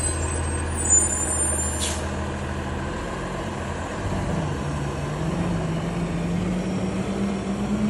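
Automated side-loading garbage truck's diesel engine running as the truck pulls away, with a short hiss of air about two seconds in. From about four seconds in, the engine note climbs as it accelerates.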